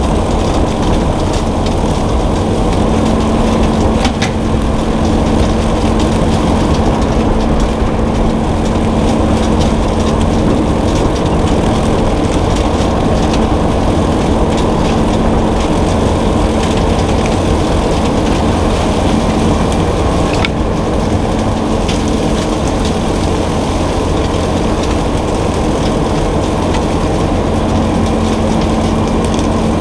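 Bobcat T650 compact track loader's diesel engine running steadily with a constant hum, and a couple of sharp knocks, one about four seconds in and one about twenty seconds in.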